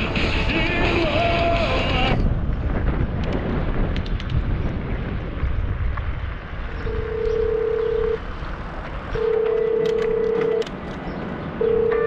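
A mobile phone ringing: three long, steady rings about a second and a half each, starting about seven seconds in. Before them, music stops abruptly about two seconds in, leaving wind and tyre noise from riding.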